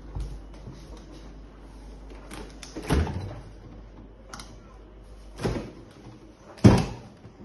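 Fridge-freezer doors being opened by hand: a series of knocks and clicks as the doors are pulled and swing open, with three louder thumps, the last and loudest near the end.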